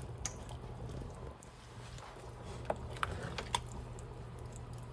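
Spatula stirring a thick cheese sauce in a stainless steel saucepan as shredded cheese melts in. It makes faint, soft squelching with a few light taps and scrapes against the pan.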